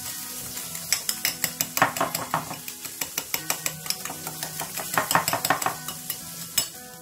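A fork whisking a beaten egg with scallions in a small bowl: quick clicking of the tines against the bowl, several clicks a second, in two busier spells.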